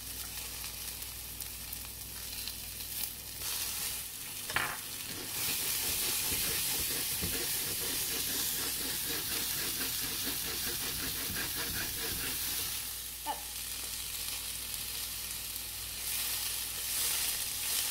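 Chopped vegetables frying in butter in a pan, sizzling steadily, stirred and pushed around with a spatula. The sizzle gets louder about five seconds in.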